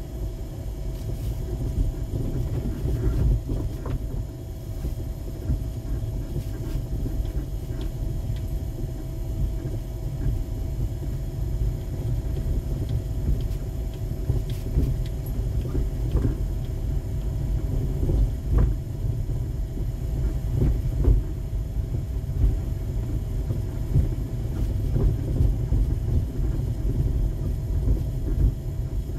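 Car cabin noise while driving slowly over a snow-covered street: a steady low rumble from the tyres and engine, with a faint even hum and a few light clicks.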